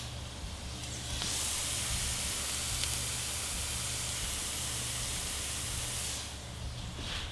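Bacon and eggs frying in a pan: a steady crackling sizzle that swells louder about a second in and eases off again about six seconds in, with a low steady hum underneath.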